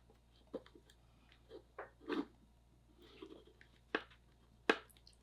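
Rubber suction cups being forced through too-tight holes in a 3D-printed plastic filter housing: faint, irregular squishing and rubbing with a few sharp clicks, the sharpest near the end.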